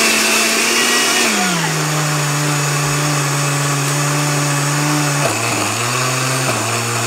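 Countertop blender motor running with its lid on, chopping chunks of cheese into shreds. The steady motor tone drops in pitch about a second in and drops again about five seconds in.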